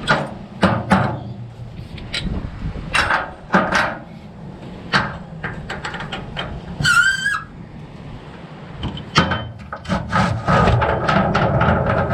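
A series of irregular sharp knocks and clanks, like hand tools and parts being handled during work on a vehicle wheel, with a brief warbling whistle-like tone about seven seconds in and a busier run of clatter near the end.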